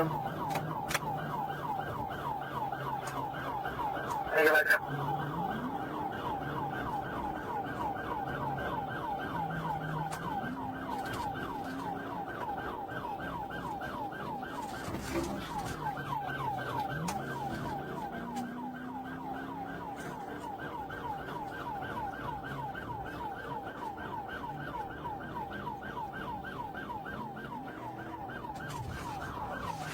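Police car siren in a fast yelp, about four to five rising-and-falling sweeps a second, over the low drone of a vehicle at highway speed during a pursuit. A brief loud burst stands out about four and a half seconds in.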